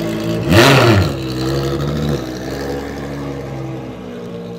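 Ferrari V12 race car engine idling, with one quick rev blip about half a second in: the pitch jumps up and drops straight back with a loud burst, then settles into a steady idle.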